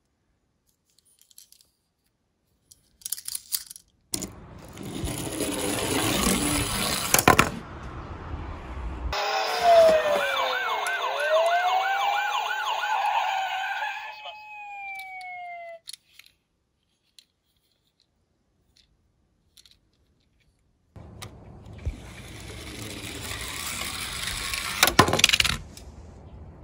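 Die-cast toy cars rolling down a plastic slope track: a rattling rumble about four seconds in, and again near the end ending in a sharp click. In between, an electronic toy siren wails and yelps rapidly, then glides down in pitch.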